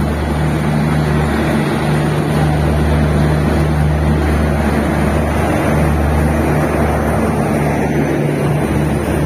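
LHB passenger coaches rolling slowly alongside a station platform, with wheel and rolling noise under a steady low drone from the end power car's diesel generator.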